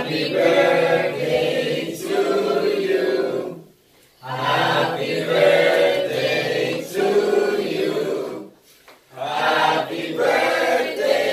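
A room full of people singing a birthday song together in unison, line by line, with two short breaks between phrases.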